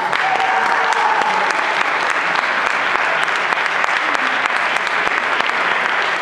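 Audience applauding steadily, a dense mass of hand clapping, at the close of a karate kata performance.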